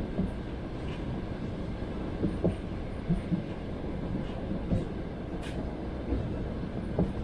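Passenger train running along the line, a steady low rumble of the wheels on the rails with scattered knocks as the wheels pass over rail joints, some in close pairs.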